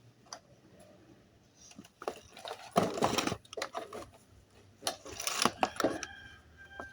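Clicks, knocks and scraping of hands working with tools and parts during a small-engine oil change, in two busy spells about two and five seconds in.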